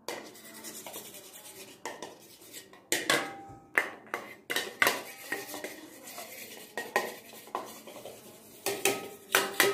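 A spoon stirring and scraping in a shallow stainless-steel pan, clinking against the metal again and again with a faint ring. The clinks come irregularly and grow louder and more frequent from about three seconds in.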